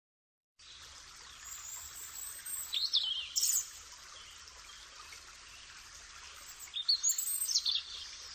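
Songbirds chirping in a few short, quick phrases, around three seconds in and again near the end, over a faint steady rushing background like running water.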